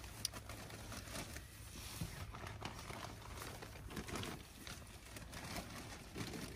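Faint crinkling rustles and light clicks as the shelter's door flaps are handled and closed.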